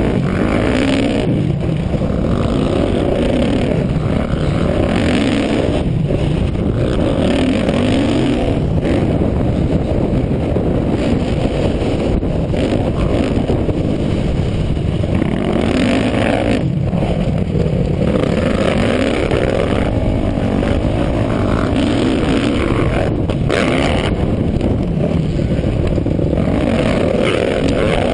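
Dirt bike engine heard from the rider's helmet camera while riding, revving up and falling back again and again under a steady rush of noise.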